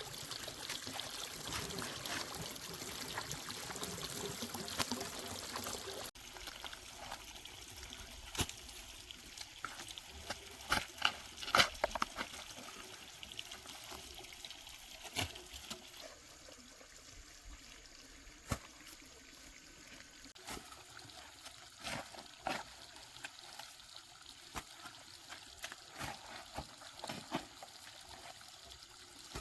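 Water trickling and pouring steadily, with scattered sharp knocks and clicks, a quick cluster of them near the middle. The water sound drops abruptly to a lower level about six seconds in.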